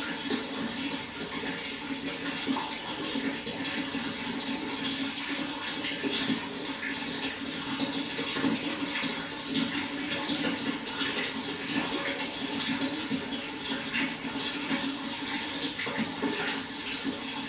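Water flowing steadily: a continuous rush with many small splashes.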